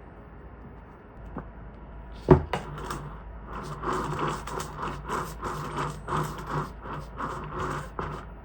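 A sharp knock, then a run of rhythmic kitchen-utensil strokes about twice a second, as in food being worked in a bowl.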